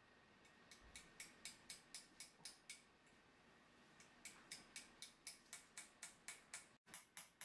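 Engraver's small hammer tapping a steel chisel to cut characters into a Japanese sword blade: light, even taps about four a second, with a pause of about a second and a half near the middle.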